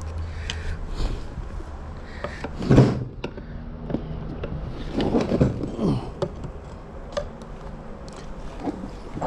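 Steel pry bar working at a Toyota 6-speed manual transmission case: irregular scrapes and knocks of metal on metal as the case is levered apart, loudest about three seconds in and again around five to six seconds in.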